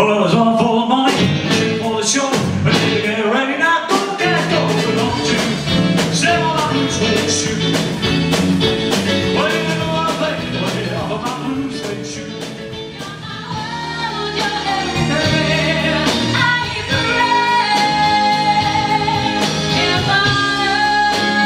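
Live rock and roll band playing, with electric guitars, bass, drums and keyboard behind a lead singer.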